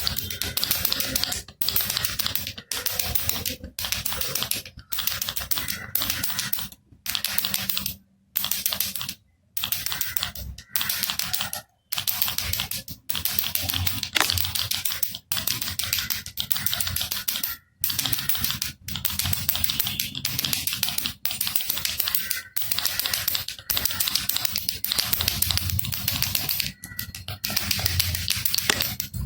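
Baby rattle (jhunjhuna) shaken repeatedly, its loose beads rattling in bursts of about a second each, separated by brief pauses.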